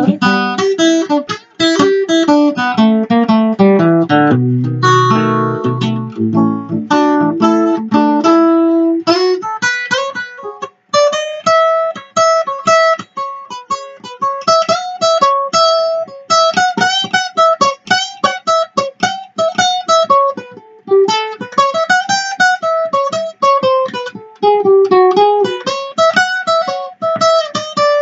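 Acoustic guitar playing a blues piece. For roughly the first nine seconds it plays lower chords over a bass line, then a quick higher melody line of picked notes that bend and slide up and down.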